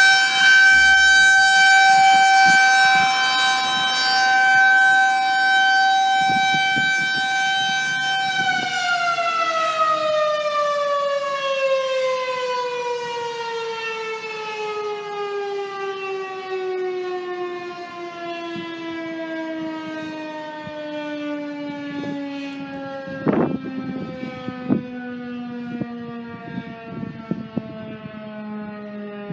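Federal Signal 2001 tornado siren sounding a steady high tone during its monthly test, then winding down after about eight seconds, its pitch falling slowly and smoothly as the rotor coasts to a stop. Two brief knocks are heard partway through the wind-down.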